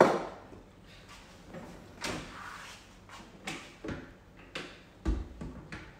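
Clicks and knocks of an electric roti maker's hinged lid being opened and shut, with a duller thump about five seconds in. A sharp knock right at the start is the loudest sound.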